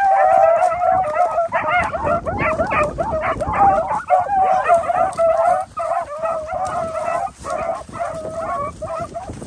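A pack of beagles baying together as they run a rabbit's scent trail, many voices overlapping at once. The calls thin out near the end.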